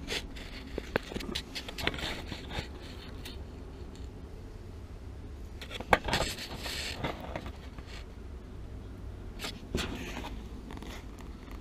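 Handling noise against a gas water heater's sheet-metal combustion-chamber cover: irregular light scrapes and clicks, with a sharper click about six seconds in, over a steady low rumble.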